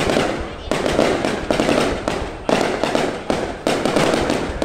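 Aerial firework shells bursting in quick succession, a sudden bang about once a second, each one trailing off into crackling.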